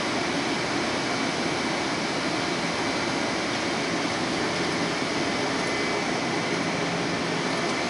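Bombardier M-7 electric train standing at the platform: a steady whir of its air-conditioning and auxiliary equipment, with a low hum that comes and goes.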